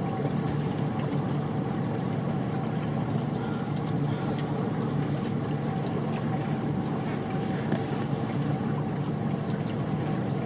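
Motorboat engine running steadily, heard on board as an even, low hum with no changes in speed.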